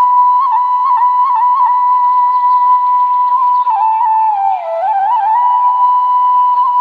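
Flute music: a long held note with quick ornamental turns, dipping into a lower wavering phrase midway before settling back on the held note.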